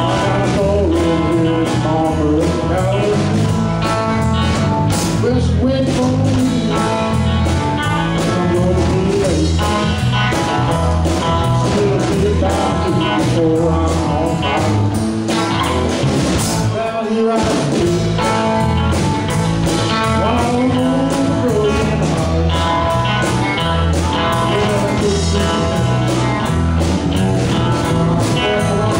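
Live band playing a blues-rock song with electric guitar, drum kit and keyboard, and a lead vocal over a steady beat.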